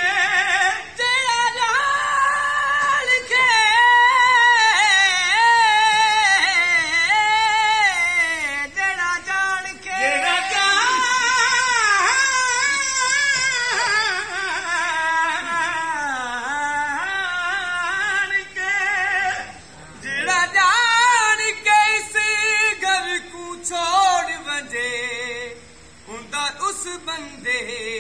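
A solo voice singing a long, ornamented Punjabi folk melody in the qawwali/Sufi style, its pitch wavering and sliding through heavy embellishments, in long phrases broken by short pauses.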